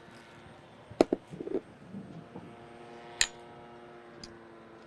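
A metal spoon clicking sharply against a glass bowl twice, about a second in and again past three seconds, with soft scraping in between as mayonnaise is scooped and spread on toast.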